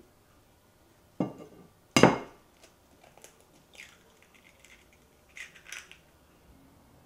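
An egg knocked twice against the rim of a ceramic bowl, the second knock the louder with a short ring, followed by small clicks and crackles of the eggshell being pulled apart.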